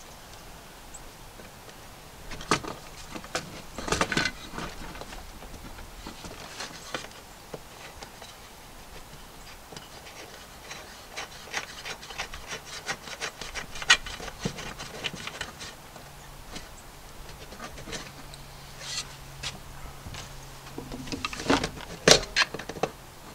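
Metal clicking, scraping and light knocks as a lock nut is threaded and tightened onto an electrical connector at a box knockout, with a quick run of small ticks in the middle and a few sharper knocks now and then.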